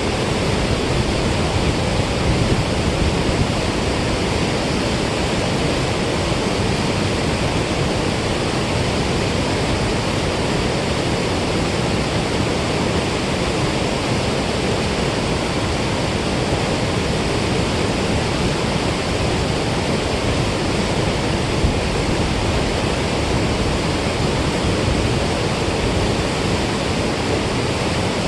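Steady rush of water pouring out through a dam spillway, an even roar with no break.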